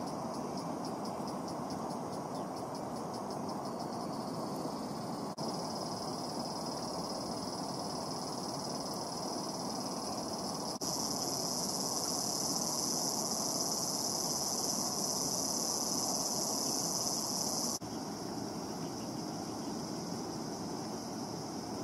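Insects shrilling in a steady high-pitched drone, with fast even pulsing in the first few seconds and louder for several seconds in the middle, over a continuous low rushing background.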